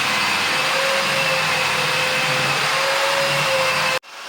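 A steady electric motor running with a constant whine, cutting off abruptly about four seconds in.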